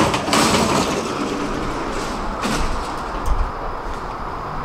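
Stockholm metro train running along the station platform: the noise comes in suddenly and loudly, then goes on as a steady rush with some rumble.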